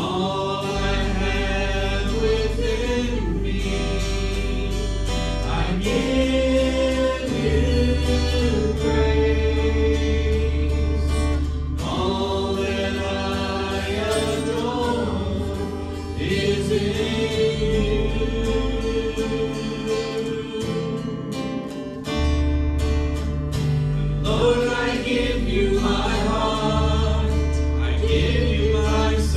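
A worship song sung by a small group of mixed voices into microphones, with acoustic guitar and long, deep bass notes underneath.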